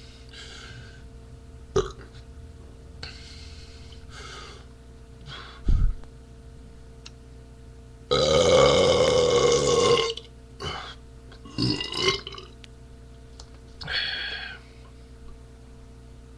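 A man burping: one long, loud belch of about two seconds some eight seconds in, with a short low thump a couple of seconds before it and a few brief smaller sounds after.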